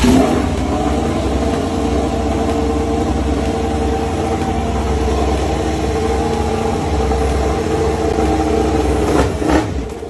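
A Yamaha YZR-M1 MotoGP bike's inline-four racing engine idling steadily. It rises briefly louder near the end.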